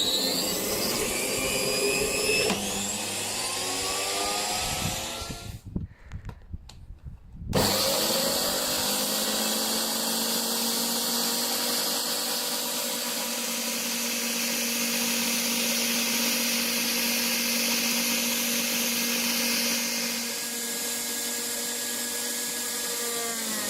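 Washing machine motor spinning the drum up, its whine rising in pitch. It cuts out for about two seconds, then ramps up quickly and holds a steady high-speed spin, with the pitch starting to fall right at the end.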